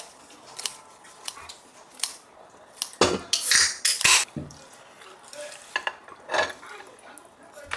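Kitchen utensils clinking against dishes and pans, with a louder, longer scrape about three seconds in.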